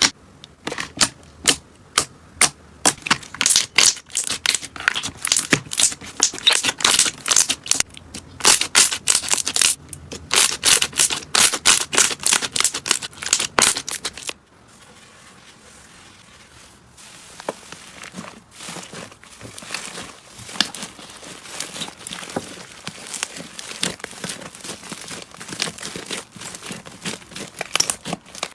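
Slime being squeezed, stretched and poked by hand, giving rapid sharp clicks and pops. About halfway through the clicks stop abruptly, and softer, quieter crackling follows.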